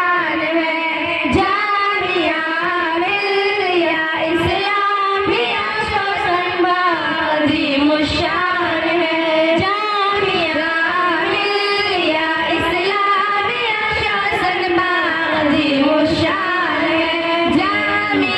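A group of girls singing a tarana (school anthem) together into microphones, one melody held and carried on without a break.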